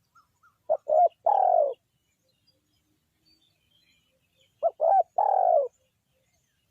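Spotted dove cooing: two calls about four seconds apart, each of two short coos followed by a longer, slightly falling coo.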